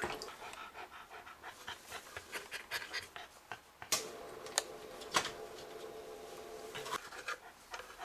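A dog panting in quick, irregular breaths. Behind it a steady mechanical hum fades out near the start and returns for a few seconds in the middle.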